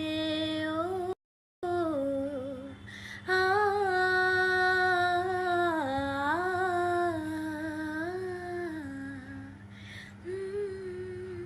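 A woman singing a wordless melody, unaccompanied, in long held notes that slide smoothly between pitches. The sound cuts out for a moment about a second in.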